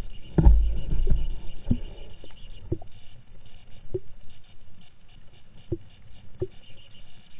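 Muffled sound through a camera in an underwater housing: a low thump about half a second in, then about half a dozen short, sharp knocks at irregular spacing.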